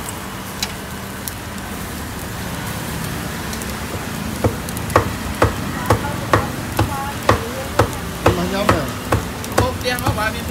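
Meat sizzling on a charcoal grill, a steady crackling hiss. About halfway in, sharp knocks begin and repeat at about two a second.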